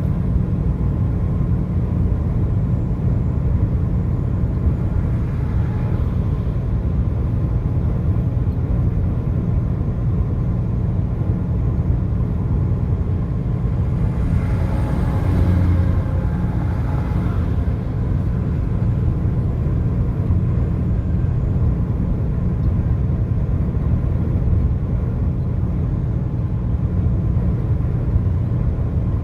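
Steady low rumble of a vehicle on the highway, with a louder swell of noise for a few seconds about halfway through.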